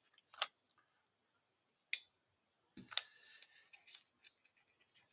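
A few short, sharp clicks and fainter ticks as the packaging of a small Victorinox keychain Swiss Army knife is handled and opened.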